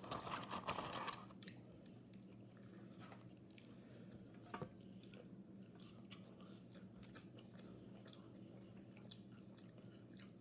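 A person chewing a mouthful of chicken burger, loudest in the first second or so, then faint scattered mouth clicks over a low steady hum.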